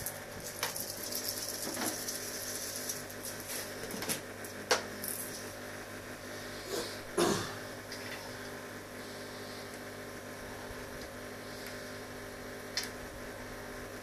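Clicks and taps of a fish-food tub being opened and handled, several in the first half and one more near the end, with a faint rustling hiss in the first few seconds, over a steady electrical hum.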